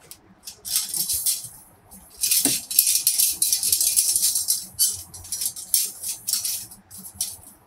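Rustling and rattling as the parts and packaging of a boxed rack are handled and pulled out, in short bursts with a longer stretch of rustling in the middle.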